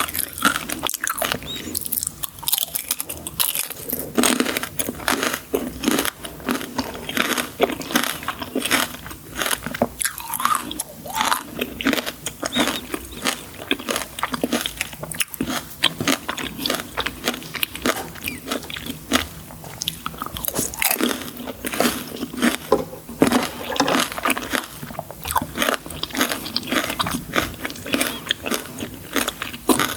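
Close-miked eating of crunchy sweets: a continuous, irregular run of crisp bites and crunches with chewing.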